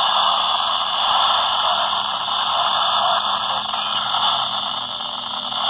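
Baofeng UV-5RE handheld FM transceiver hissing with steady radio static: the noise of a weak, distant 70 cm repeater signal, with a faint low steady tone underneath.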